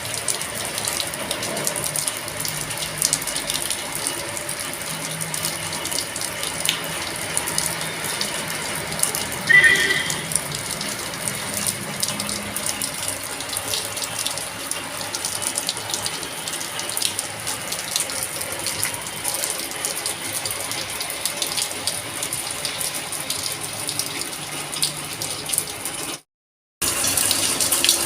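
Steady daytime rain, with drops splashing on hard surfaces as a dense patter of fine taps. About ten seconds in there is a brief higher-pitched sound, the loudest moment, and near the end the sound cuts out for half a second.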